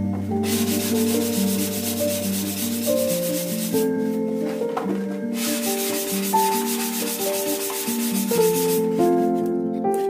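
Hand sanding block rubbed back and forth along the edge of blue extruded polystyrene foam board, a rough hiss in long strokes with short breaks, stopping about a second before the end. Background music plays throughout.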